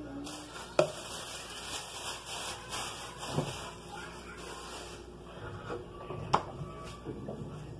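Kitchen clatter: three sharp knocks of things being handled or set down, the last the loudest, with a steady hiss through the first five seconds.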